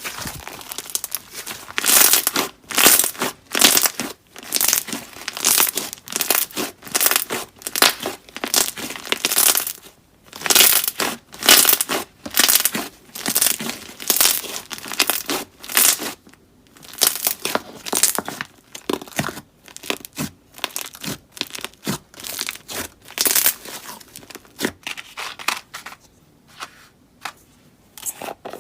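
Slime being squished and pulled by hand: a long run of short, sticky squishing noises, about one or two a second, with brief pauses now and then.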